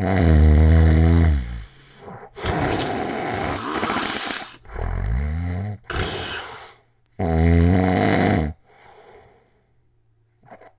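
Very loud snoring of a man with sleep apnea. It runs as a string of heavy snores, some deep and buzzing, others rough and rasping, one after another for about eight seconds. Then the breathing drops to a faint breath and goes quiet near the end.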